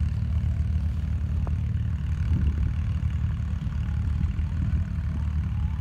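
Off-road vehicle engine running with a steady low rumble.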